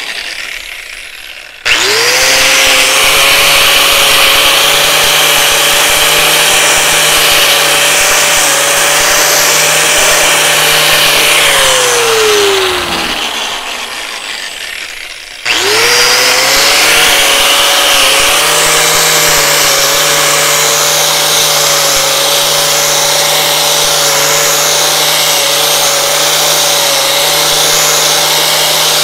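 Electric angle grinder with a sanding disc working the edge of a tractor flywheel. It starts sharply about two seconds in, runs steadily, and winds down after about ten seconds. About halfway through it starts again and runs on steadily.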